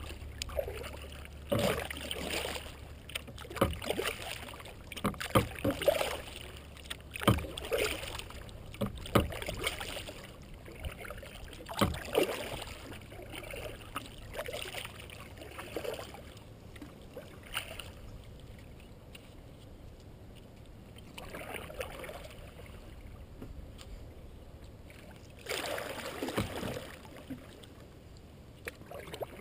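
Kayak paddling: irregular splashes of the paddle blades in the water and sharp knocks. It goes quieter for several seconds past the middle, then there is a cluster of strokes near the end.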